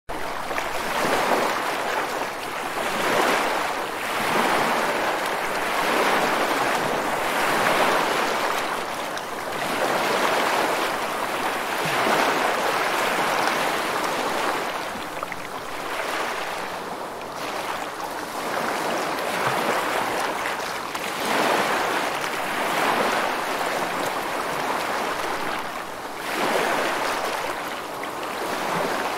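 Sea waves washing in, a continuous rushing that swells and eases every few seconds.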